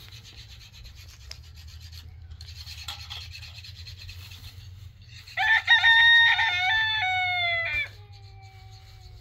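A rooster crowing once, starting about five seconds in: a loud call of about two and a half seconds, held steady and then falling in pitch before it breaks off.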